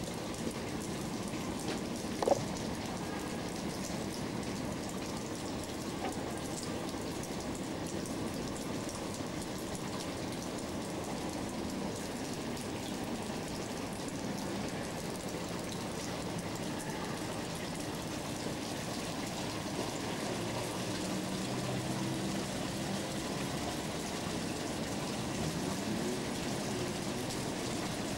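Steady rain falling, heard as an even pattering hiss, with one brief sharp knock about two seconds in.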